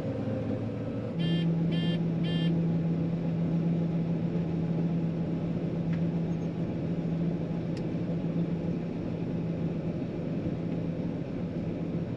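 John Deere 9500 combine running, heard from inside the cab. About a second in, a strong steady low hum comes in and the level rises, and at the same moment three quick electronic beeps sound from the cab, about half a second apart.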